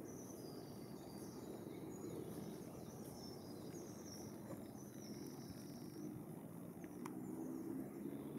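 Woodland songbird singing thin, high warbling phrases over a low, steady background hum, with one sharp click about seven seconds in.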